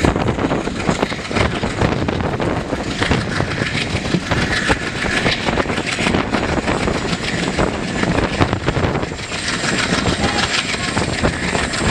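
Express passenger train running along the track, heard from on board: a steady rumble and rattle of the coaches with a dense clatter of wheels on rails.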